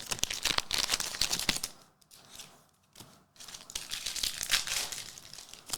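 A trading card pack being torn open and its wrapper crinkled, in two bouts of crackling rustle with a short pause between them.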